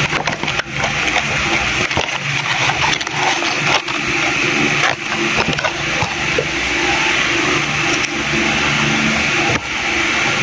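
Steady rushing background noise, with scattered clicks and rustling as a cardboard toy box is opened by hand and a plush toy is pulled out.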